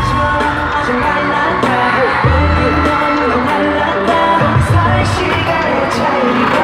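Live K-pop concert music: a male vocal line sung over a loud, dense backing track with deep bass swells every couple of seconds.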